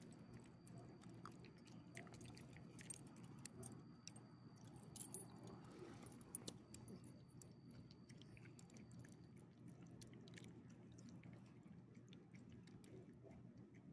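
Faint small clicks and light jingling of a small dog licking and chewing chicken from a hand, its collar tag tinkling as it eats.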